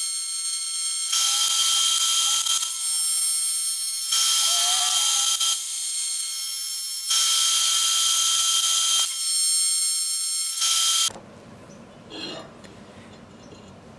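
HTP Invertig 221 AC TIG arc buzzing steadily while welding an aluminium bung onto a fitting, its level shifting a few times and cutting off about eleven seconds in.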